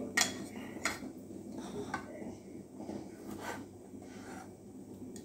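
Kitchen knife cutting grapes on a plastic cutting board: several short, sharp clicks and taps as the blade meets the board and the fruit is handled.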